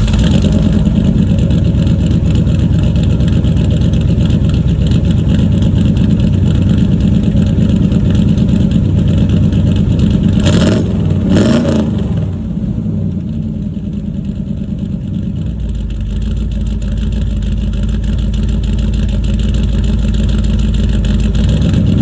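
Rebuilt V8 of a 1984 Ford Bronco, fitted with a performance cam and headers, running loudly at a steady idle, with a couple of quick throttle revs rising and falling about ten seconds in.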